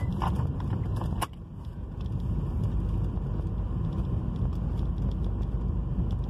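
Steady low rumble of road and engine noise heard inside a car's cabin while driving slowly, with a few light clicks and one sharp click about a second in.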